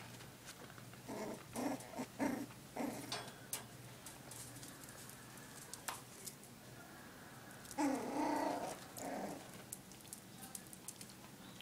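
Month-old dachshund puppies play-growling in short bursts as they wrestle. About eight seconds in comes a louder growl lasting about a second, with scattered light clicks throughout.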